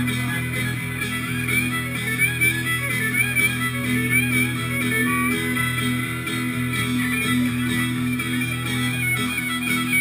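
Live fiddle and guitar duo playing a tune: the fiddle carries a wavering melody over the guitar's steady accompaniment.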